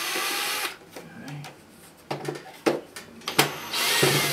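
Ryobi 18V cordless drill-driver spinning screws out of the plastic back of a National RX-5100 boombox: one run that stops under a second in, a few light clicks, then a second short run near the end.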